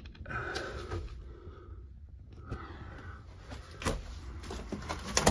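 Scuffing footsteps and handling noise in a small concrete room, with a couple of sharp knocks near the end.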